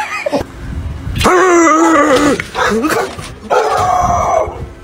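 A large black dog barking in long, drawn-out calls, each about a second long, three in a row.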